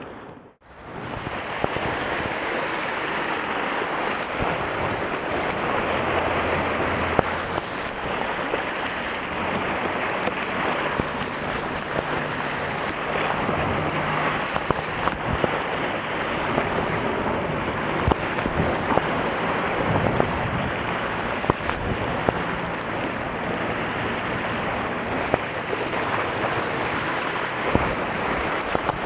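Sea waves washing against a rocky shore and wind on the microphone: a steady, even rush of noise, starting after a brief gap about half a second in.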